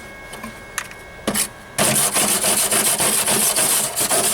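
Flux-core wire welder arc crackling steadily while welding a sheet-metal patch into a truck floor pan. It starts about two seconds in, after a few faint clicks.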